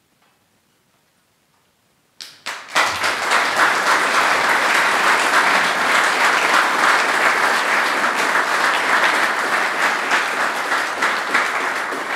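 Audience applauding: after about two seconds of near silence, a few single claps swell within half a second into steady applause from a seated crowd.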